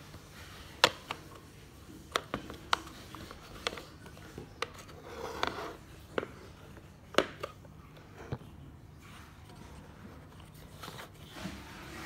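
Handling noise from the plastic housing of an Ecovacs Deebot robot vacuum: about a dozen sharp, scattered plastic clicks and taps as fingers work its tabs and buttons, with a brief rustle about five seconds in.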